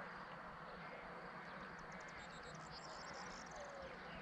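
Quiet, steady outdoor background noise, with a faint high-pitched trill of fast ticks lasting about two seconds in the middle.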